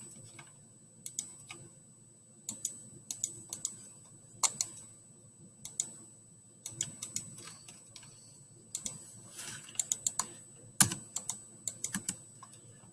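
Computer keyboard and mouse clicking during CAD drafting: scattered sharp clicks, some in quick runs of several.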